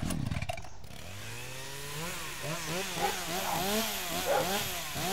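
Two-stroke chainsaw pull-started: a sharp pull of the starter cord, then the engine catches about a second in and runs, its speed rising and falling over and over.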